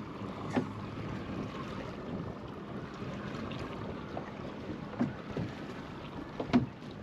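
Steady wind and sea noise around a fishing boat offshore, with a few short knocks: one about half a second in, one near five seconds and one near the end.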